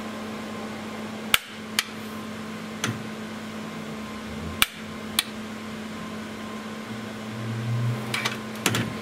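A heavy metal processor book module of an IBM Power 595 server being slid out of its rack frame: a series of sharp metal clicks and knocks, with a low rumble near the end. A steady hum runs underneath.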